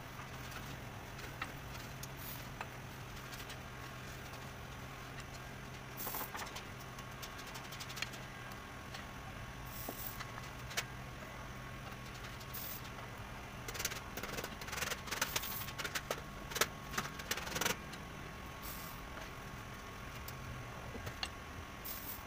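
Light metallic clicks and taps from hand work on brass sheet, scattered at first and then a quick run of them about two-thirds of the way through, over a steady low hum.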